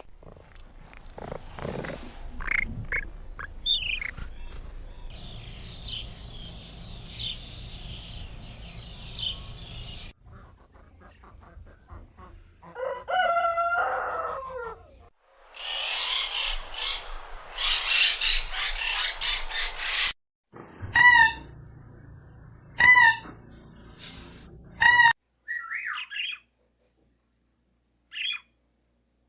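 A string of chicken sound clips. A rooster crows once with a long call about thirteen seconds in, followed by a burst of rapid clucking. Three short, loud, identical calls come about two seconds apart near the end.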